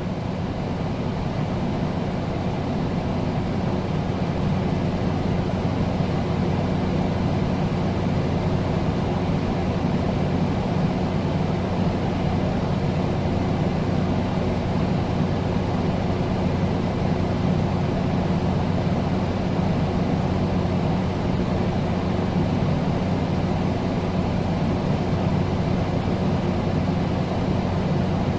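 Air conditioner running steadily: a constant rush of air under a low, even hum.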